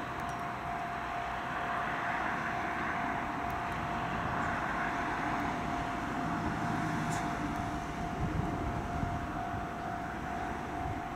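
Road traffic passing along a coastal road, with the noise of a box truck swelling and fading around the middle. A steady high-pitched tone sounds throughout.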